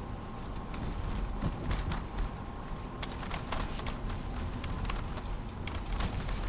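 Low road rumble inside a moving Toyota Alphard's cabin, with irregular sharp clicks and ticks scattered through it: the kind of abnormal rattle noise the owner is reporting.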